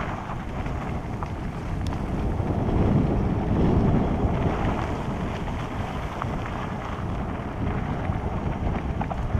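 Wind buffeting a helmet-mounted camera's microphone over the rumble of a hardtail mountain bike rolling fast along a dirt singletrack. The noise swells about three to four seconds in.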